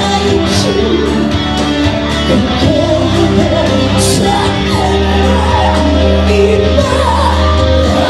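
Live band playing loud rock music, electric guitars over a steady bass line, with vocals over it.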